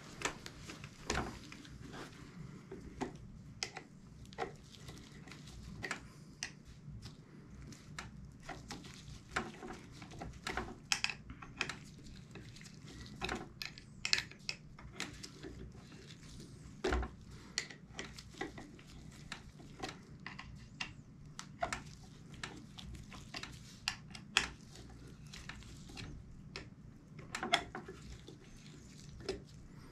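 Irregular small metallic clicks and knocks of a hex key working the axle bolts of an inline skate's frame, tightening them a little at a time, mixed with knocks from the skate being handled.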